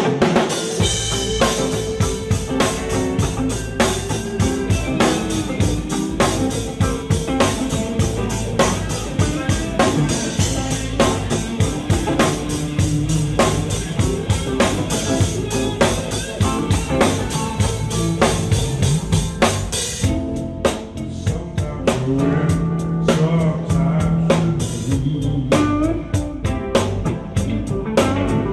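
Rock band playing an instrumental passage: drum kit with steady kick and snare hits about twice a second under bass and electric guitar. The cymbal wash stops about two-thirds of the way through, leaving a lighter hi-hat pattern.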